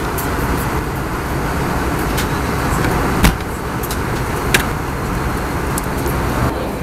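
Steady rumble and hiss of an Airbus A320's cabin in flight, with the seat-back tray-table latch clicking as it is turned by hand: one sharp click about three seconds in and a lighter one about a second later.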